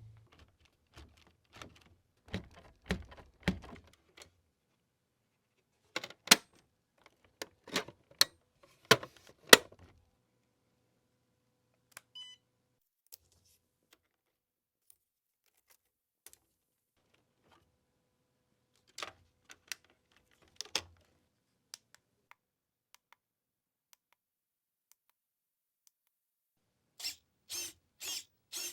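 Scattered clicks and knocks from an RC Hummer H1 model truck, with long quiet gaps between them. Near the end comes a run of short whirring bursts, about two a second.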